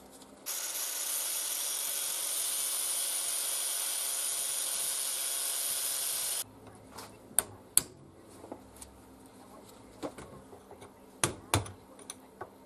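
Angle grinder with a thin cut-off disc cutting through the steel upright of an old jack. It makes a steady, high cutting noise for about six seconds and stops suddenly. Afterwards there are a few sharp metal clicks and knocks as the cut part is handled.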